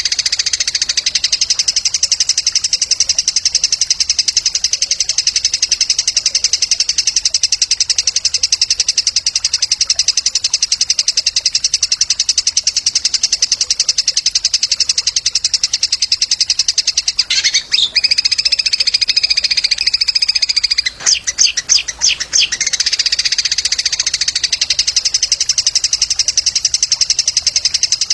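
A songbird's continuous, very fast, high-pitched trill from a masteran bird-song training recording. The trill breaks off briefly twice past the middle for a few separate sharp notes before it resumes.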